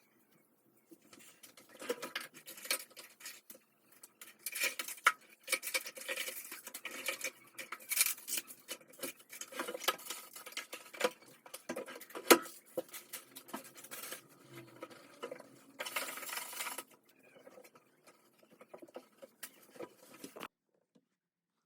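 Household objects being handled and set down by hand: a busy run of light knocks, taps, clicks and rustles that stops abruptly near the end.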